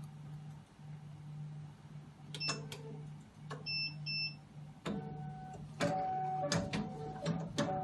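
SY-BH192 hematology analyzer working through a quality-control test cycle: a steady low pump hum that stops and starts, with sharp valve clicks. There are two short beeps a little after halfway, and a motor whine joins the clicks in the second half.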